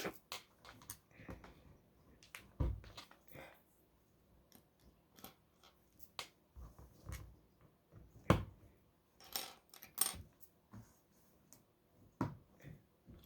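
Plastic LEGO bricks clicking and rattling as pieces are handled and pressed together: a scatter of irregular light clicks, the sharpest about eight seconds in.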